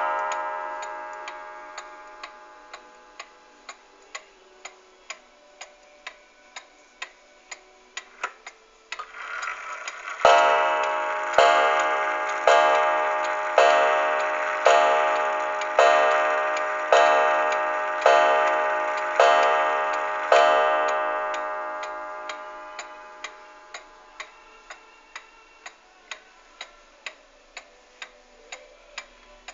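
Ansonia Aspen kitchen clock from 1906 ticking steadily, about one and a half ticks a second, while a strike just before this fades over the first few seconds. About ten seconds in, it strikes ten o'clock: ten ringing strokes on its gong, about a second apart.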